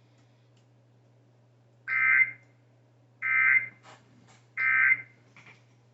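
Three short bursts of shrill digital data from a NOAA Weather Radio, each about half a second long and about a second and a half apart. This is the EAS/SAME end-of-message code that closes the tornado warning broadcast. A steady low hum sits underneath, with a few faint clicks near the end.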